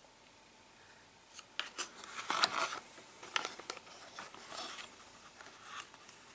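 Hollow plastic toy car handled and turned over in the hands: a string of sharp plastic clicks and short scrapes, starting about a second and a half in.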